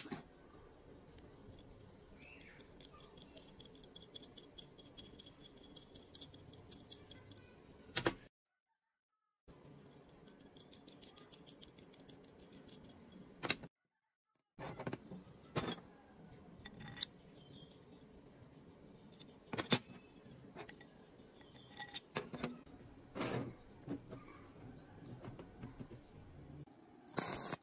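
Small steel parts clinking and tapping on a metal work surface: galvanized threaded rods, hex nuts and bent steel plates knocked together and set down, with a nut being threaded onto a rod. Many short clicks with a faint high ringing, twice cut off by about a second of silence.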